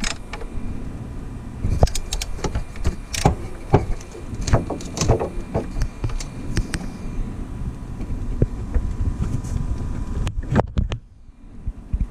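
Wrench working a rusted, seized engine motor-mount bolt: irregular metal clicks and clanks of the tool against the bolt and mount, with a quieter pause about eleven seconds in.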